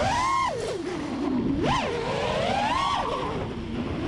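Four brushless motors (T-Motor 1507 with Gemfan 4032 props) of a 4-inch FPV quad whining, the pitch swinging up and down with the throttle: a quick rise and fall at the start, a sharp spike in the middle, then a slower climb that drops off near the end.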